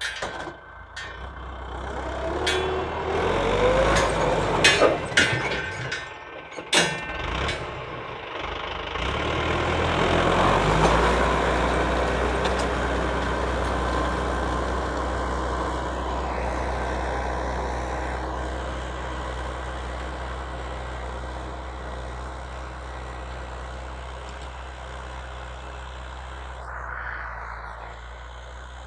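Mahindra Arjun 605 tractor engine running, with a series of sharp clanks and knocks in the first eight seconds. It then runs steadily, louder at first and slowly growing quieter toward the end.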